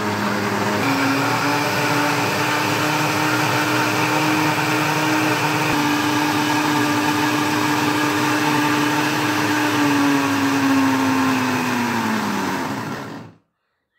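Kitchen blender motor running, blending yam, lemon juice and iced water: a loud, steady hum whose pitch steps up about a second in, then falls as it winds down and cuts off shortly before the end.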